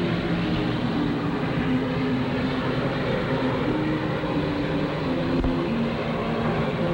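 A moving train's steady rumble and clatter, with held musical notes changing pitch every second or so over it.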